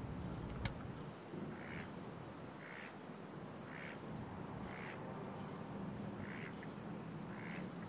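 Domestic Muscovy duck quacking softly, about once a second, over a steady high insect hum and short high chirps. A single sharp click comes just under a second in.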